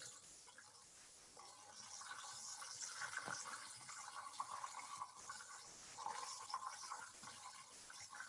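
Floured buttermilk chicken pieces frying in a pan of hot oil: faint, steady sizzling with small crackles and pops from the bubbling oil.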